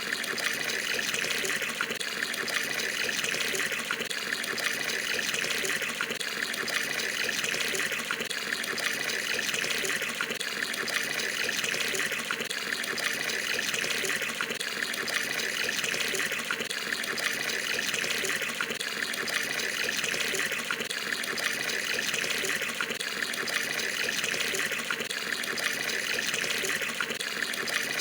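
Tap water pouring steadily into an Indonesian bathroom water tub (bak mandi) as it fills.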